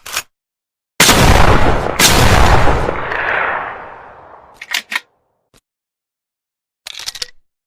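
Two shots from a TOZ over-under shotgun, about a second apart, each very loud with a long echoing tail that fades away over a couple of seconds. A few short, sharp clicks follow.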